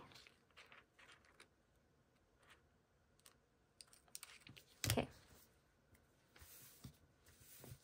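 Faint small clicks and taps of stationery being handled on a desk, with one louder knock about five seconds in.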